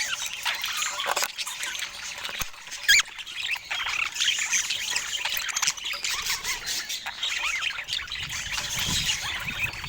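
Budgerigars chattering, with many quick overlapping chirps and one louder, sharper call about three seconds in.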